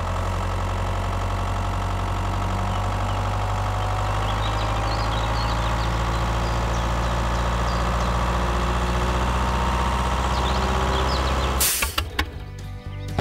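Tractor engine running steadily, with faint bird chirps over it. About a second before the end, a short loud burst of noise cuts the engine sound off.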